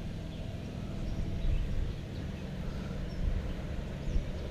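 Steady low outdoor rumble of a fast-flowing creek, with a few faint bird chirps.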